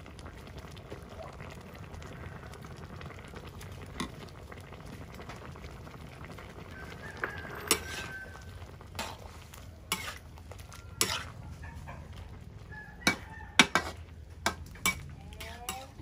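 Sponge gourd soup simmering in a steel wok over a wood fire, with a metal ladle clinking and scraping against the wok in sharp strikes from about halfway through.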